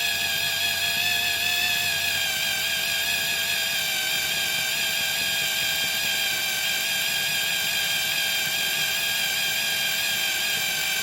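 Electric drill with a 2.5 mm bit running at a steady high-pitched whine, drilling out the rivet post of a diecast Matchbox car's zinc-alloy base.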